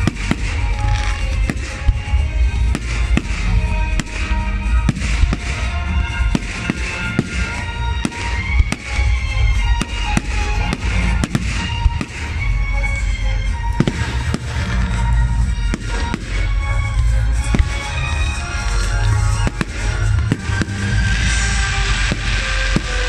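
Aerial firework shells bursting in quick succession, many sharp bangs and booms, with music playing along throughout.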